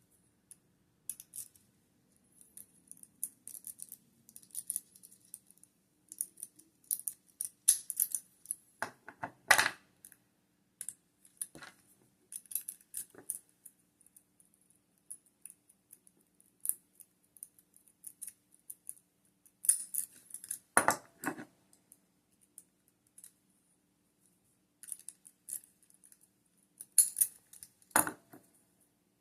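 Lock picks and a tension wrench scraping and clicking against the pins inside a lock during picking: a stream of light metallic ticks and scrapes. Three louder metallic clacks come about a third of the way in, past the middle, and near the end.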